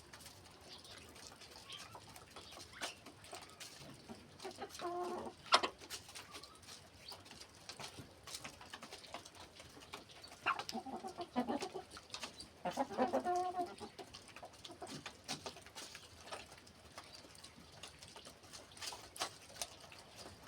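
Chickens clucking in three short bouts, about five seconds in, around ten and a half seconds and around thirteen seconds, among scattered light clicks and taps, with one sharp click about five and a half seconds in.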